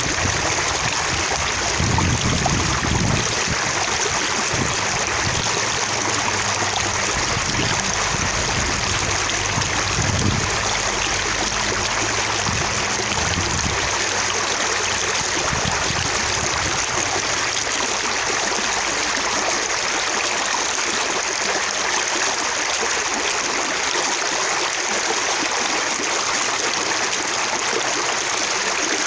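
Running water splashing steadily, a full rushing sound with droplets spattering.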